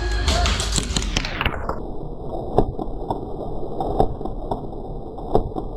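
Scattered sharp pops of airsoft gunfire over the shuffle of movement, muffled from about two seconds in, with a few distinct shots spaced a second or more apart.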